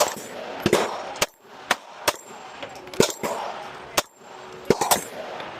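9mm pistols firing a string of about eight to ten sharp shots at an uneven pace, most well under a second apart, with three in quick succession near the end.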